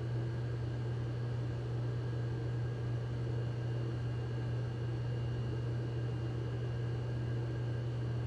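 Steady low hum with an even hiss and a few thin, steady high tones; no other sound.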